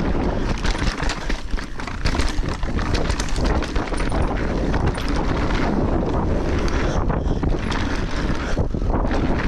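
Mountain bike rolling fast down a dirt trail: wind buffeting the camera's microphone over a steady tyre rumble, with frequent small clatters and rattles from the bike over the rough ground.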